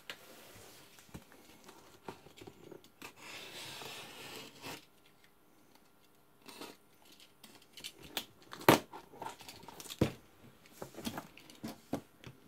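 A utility knife cutting into a taped cardboard box: packing tape and cardboard tearing and crinkling, with a scraping stretch about three to five seconds in. Scattered sharp knocks and taps follow as the box is handled, the loudest about nine and ten seconds in.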